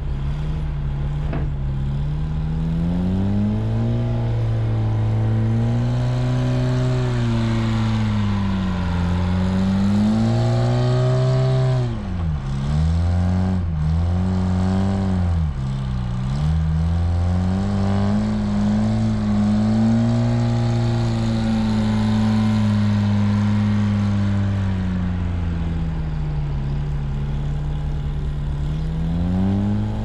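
Front-end loader engine working through a loading cycle, its revs rising and falling as the machine backs off, fills its bucket with loam and drives back toward the truck. Around the middle the revs drop sharply and climb again a few times.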